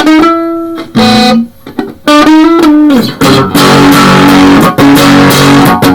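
Electric guitar played loud: a few single notes rung out in the first three seconds, then thicker chords held and restruck several times with short breaks.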